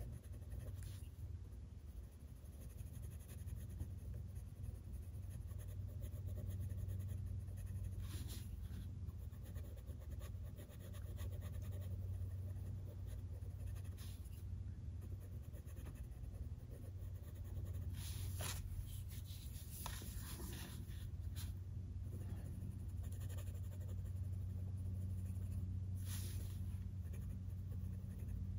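Coloured pencil shading on coloring-book paper: faint, soft scratching with a few louder stretches of strokes, over a steady low hum.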